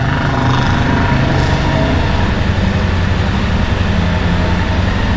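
Royal Enfield Interceptor 650's parallel-twin engine idling steadily.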